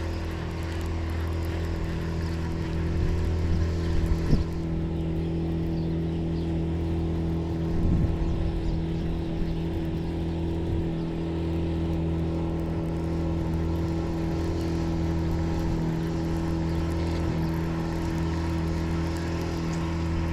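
A motor hums steadily at a constant pitch, with a short knock about four seconds in.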